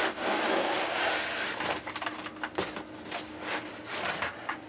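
Cardboard box being opened: cardboard flaps and lid scraping and rubbing against each other, loudest in the first second or so, followed by a series of light knocks and taps as the box and its contents are handled.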